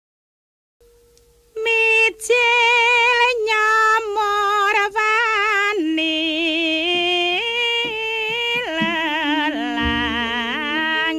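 Javanese gending opening with a solo female voice singing long notes with a strong, wavering vibrato, starting about a second and a half in. Lower held instrumental notes join in near the end.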